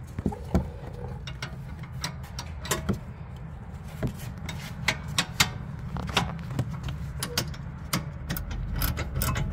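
Ratcheting wrench clicking in short irregular runs as suspension arm bolts are snugged up, with a steady low hum underneath.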